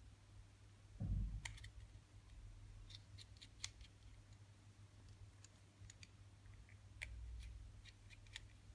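Faint, scattered small metallic clicks of a precision screwdriver turning out the tiny side screws of an iPhone 6S display assembly, with a soft thump about a second in and a steady low hum underneath.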